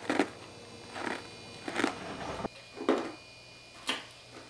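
Ice cubes being crunched between the teeth, with a short crunch about once a second, five in all.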